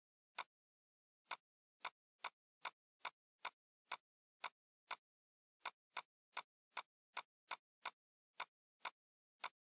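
Computer mouse button clicking: about twenty short, sharp clicks at uneven spacing, roughly two a second, with dead silence between them.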